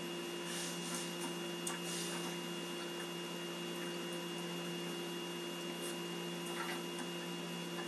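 A steady hum with a faint high whine over a low hiss, and a few faint clicks.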